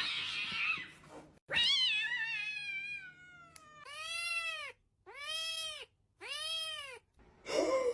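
A domestic cat meowing: one long, drawn-out meow that wavers and slowly falls in pitch, then three short meows about a second apart, each rising and falling.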